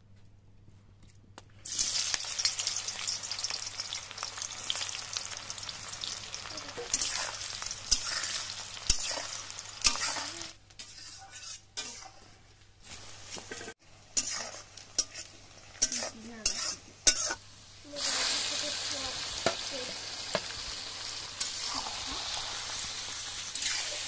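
Pieces of goat intestine frying in hot oil in an iron kadai. The sizzle starts suddenly about two seconds in, with scrapes and clicks of a metal spatula stirring them. The sizzle drops back in the middle and comes back loud later.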